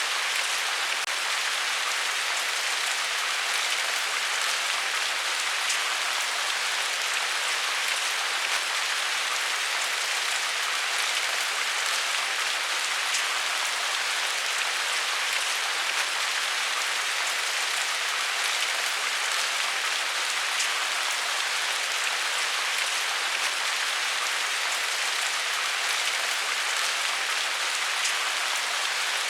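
Steady rain falling on a surface: an even hiss of rainfall with scattered drop strikes and no change in intensity.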